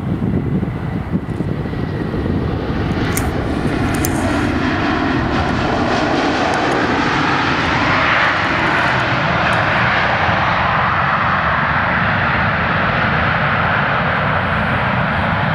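jetBlue Embraer E190's twin turbofan jet engines as the airliner lands and rolls out on the runway: a steady, loud jet roar that swells about halfway through and stays loud.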